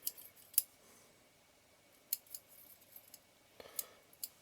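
A few faint, sharp metallic clicks and ticks, spaced irregularly, from small screws and tools being handled while the aperture hook is taken off the back of a lens.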